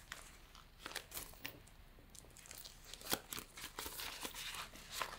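Paper banknotes and a plastic binder envelope rustling and crinkling softly as they are handled, with a few sharper clicks, one about three seconds in.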